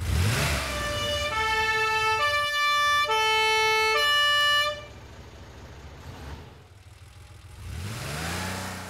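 Cartoon fire engine sound effect: a short engine rev, then a loud two-tone siren whose two notes alternate about once a second and stop about halfway through, leaving a fainter engine sound.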